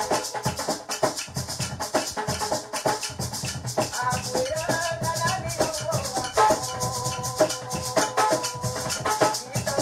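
Garifuna paranda music: maracas shaking a quick, steady rhythm over Garifuna hand drums, with a held melodic line above them at times.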